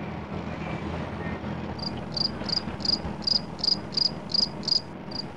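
Steady engine and road noise of a moving vehicle. From about two seconds in, a high, short chirp repeats evenly nearly three times a second.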